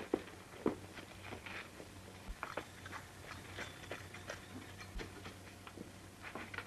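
Irregular light knocks and clicks, two louder ones within the first second, over a steady low hum from an old film soundtrack.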